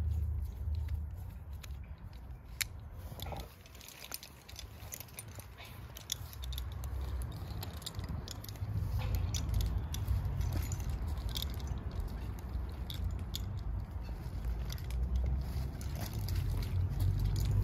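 Metal rope-access hardware being handled as a rope is tensioned: scattered light clicks of carabiners and rope-grab devices. A steady low rumble runs underneath and grows louder in the second half.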